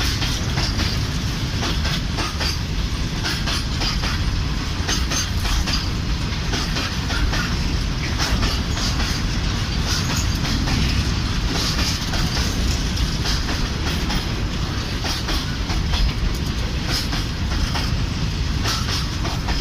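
Freight train wagons rolling past close by: a steady heavy rumble with the wheels clattering over the rail joints.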